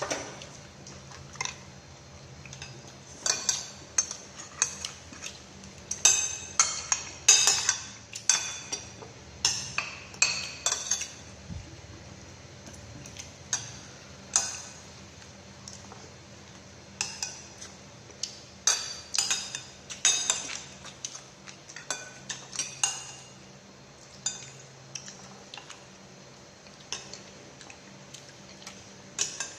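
Irregular clinks and taps of utensils against dishes and bowls, many of them ringing briefly, over a faint steady hum.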